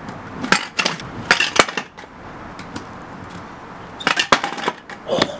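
Metal scooter deck with skateboard trucks clattering and slapping on concrete during kickflip attempts. It makes sharp knocks and clinks, a cluster of them in the first second and a half and another about four seconds in.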